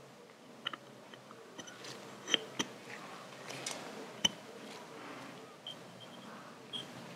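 Sharp little metal clicks and taps as a polished brake lever and its steel pivot pin are fitted into a motorcycle front brake master cylinder's lever bracket, the loudest two about two seconds apart, over soft handling rustle.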